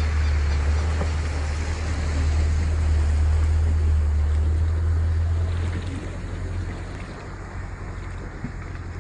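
Heavy vehicle driving through flood water on a road: a steady rush of spraying water over a deep low rumble of engine and wind on the microphone. The water rush dies down about six seconds in.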